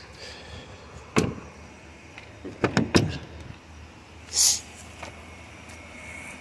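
Pickup truck's rear cab door being shut: a single sharp knock about a second in, then two or three sharp clunks around three seconds in as it closes. The idling 5.0 V8 hums low underneath, and a short hiss comes shortly after the door shuts.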